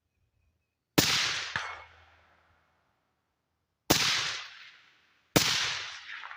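Three suppressed shots from a 13.9-inch mid-length .223 carbine fitted with an Otter Creek Labs Polonium K suppressor: one about a second in, one near the middle and one a second and a half later. Each is a sharp report with a tail that dies away over about a second. The bullet's crack is still there.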